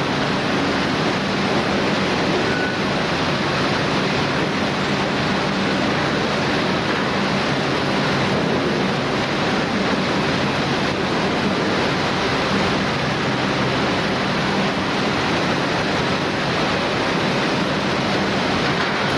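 Taihei rotary veneer peeling lathe running, a loud, steady machine noise with a faint low hum underneath.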